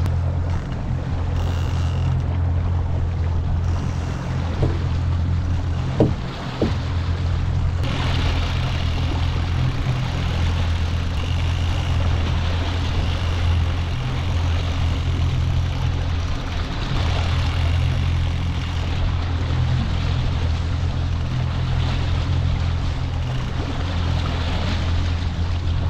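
Boat motor running steadily at trolling speed, a constant low drone with water and wind noise over it, and a couple of sharp knocks about six seconds in.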